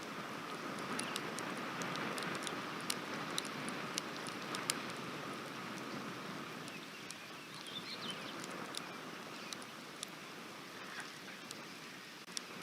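Steady rain, with single drops ticking sharply and irregularly close by. Faint high chirps come in about halfway through.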